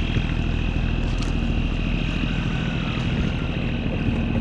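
Small boat's motor running at a steady speed.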